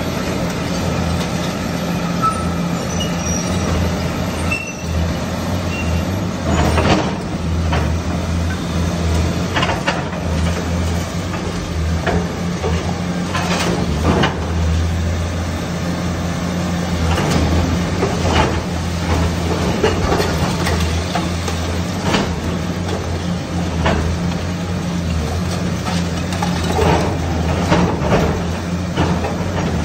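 Hyundai ROBEX 290LC-9 excavator's diesel engine running steadily under working load. About a dozen separate crashes and crunches of brick and concrete come as the arm pulls down masonry.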